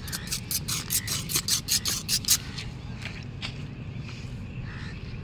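A quick run of about a dozen short scraping strokes, roughly five a second, then two more about a second later, over a low steady rumble.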